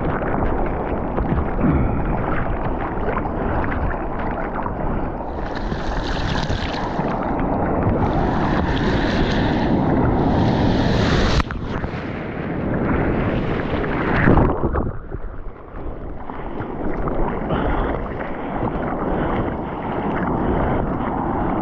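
Ocean surf and rushing water with wind buffeting the microphone, steady and loud. Three louder washes of hiss come in the middle, and the sound drops suddenly about eleven seconds in.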